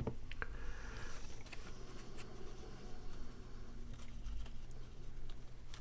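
Cardstock being handled and pressed down during gluing: faint rustling with scattered light taps and clicks, and a sharp knock at the very start. A low steady hum runs underneath.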